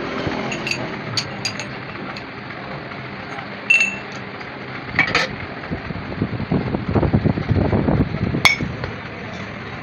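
Scattered metallic clinks and knocks of tools and metal parts being handled, a few of them ringing briefly.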